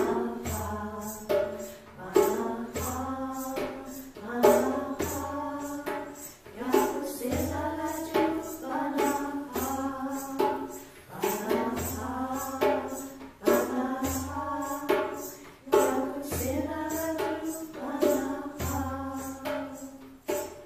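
Voices singing a short melodic phrase over and over, with a tambourine keeping a steady beat.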